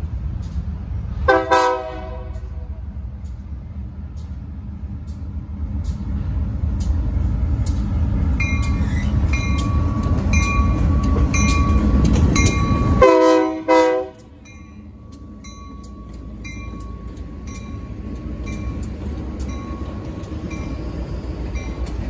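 GE B23-7 diesel locomotives (GE 7FDL-12 V12 engines) passing close by with a heavy rumble that builds as they approach, and their chime horn sounded in a short blast about a second and a half in and again in a short double blast about thirteen seconds in. From about eight seconds on, the locomotive bell rings steadily at about three strikes every two seconds.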